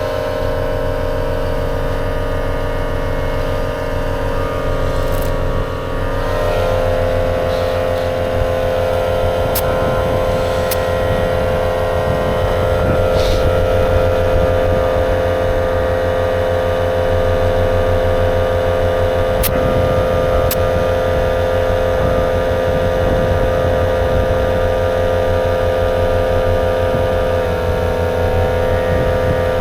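Portable air compressor running steadily with a fast pulsing beat, inflating a tire. Its pitch shifts slightly about six seconds in and dips a little near the end.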